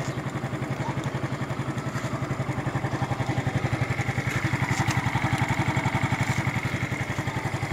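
Yamaha Mio Soulty scooter's single-cylinder engine idling steadily, with an even, fast putter.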